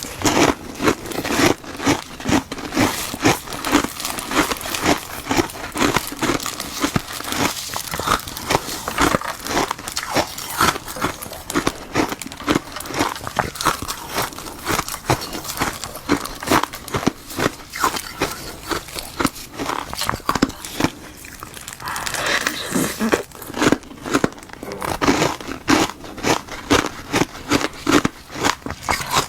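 Close-miked biting and crunching of hard frozen ice, made from black goji berry water frozen in a glove, bite after crisp bite. There is a short pause about two-thirds of the way through.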